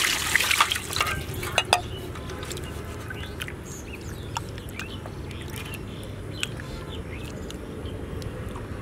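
Liquid pouring for about the first two seconds, with a few sharp clinks, then a low steady background with scattered faint ticks.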